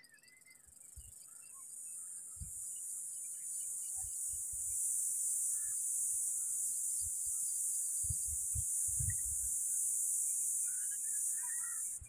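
A steady high-pitched hiss swells over the first few seconds, then holds and cuts off at the end, with scattered short bird chirps and a few low thumps on the microphone.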